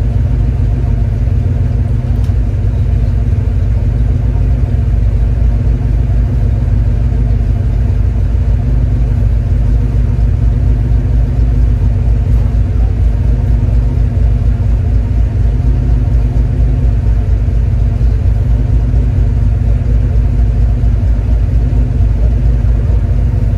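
A car running at a steady speed: a constant low engine and road drone with no change in pitch or level.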